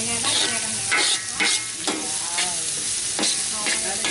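Metal spatula repeatedly scraping and knocking across a large shallow metal pan while diced carrots sizzle in hot oil, being stir-fried.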